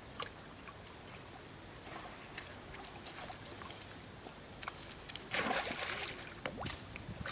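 Monkeys swimming and playing in a pool, with light trickling and dripping water and small splashes, then a bigger splash about five seconds in and a shorter one a second later.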